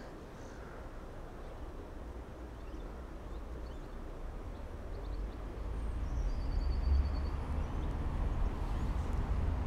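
Low outdoor rumble that grows louder after about five seconds, with a small bird's quick trill of short high notes about six seconds in.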